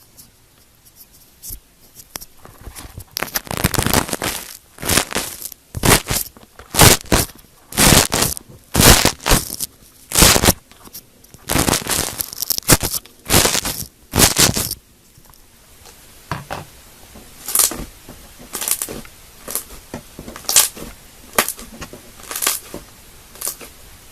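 Crunchy slime being squeezed and worked by hand, giving repeated crackling, crunching bursts about once a second. The bursts are loud through the first half and become softer and more spread out in the second half.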